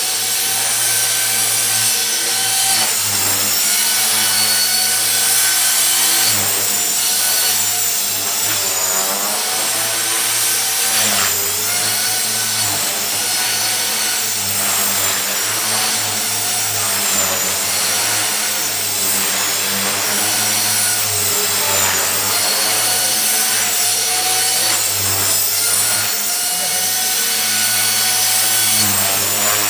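Align T-REX 450 electric RC helicopter with a Scorpion brushless motor flying 3D manoeuvres: a steady motor-and-gear whine over the rotor blade noise. Its pitch rises and falls as the blades load and unload.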